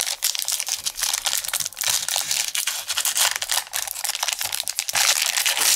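Foil wrapper of a trading-card pack crinkling and tearing as the pack is opened, a dense run of crackles with a brief pause about five seconds in.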